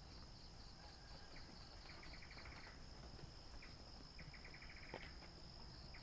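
Faint night insects, crickets: a steady high-pitched trill, with a short run of rapid chirps about two seconds in and again about four seconds in.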